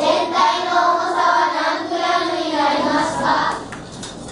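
A class of young schoolchildren reading a maths word problem aloud in unison, in a sing-song chant, trailing off near the end.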